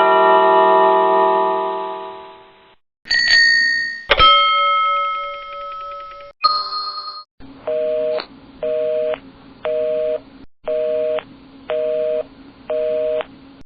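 A string of bell and chime sound effects. A chord of chimes rings and fades away over about three seconds. Three single struck dings follow, then a short electronic ring repeated six times, about once a second.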